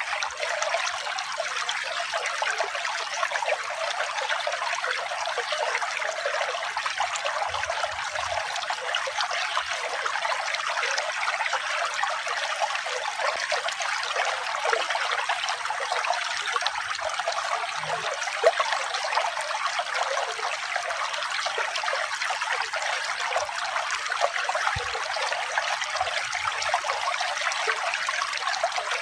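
Running water trickling and splashing steadily, with almost no deep rumble.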